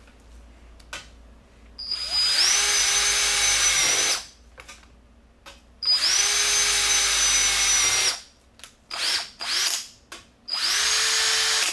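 Snap-on CDR6850A 18-volt cordless drill driver run in repeated trigger pulls: two runs of about two seconds each, three or four short blips, then another run starting near the end. Each run opens with a rising whine as the motor spins up, holds a steady whine, and stops when the trigger is released.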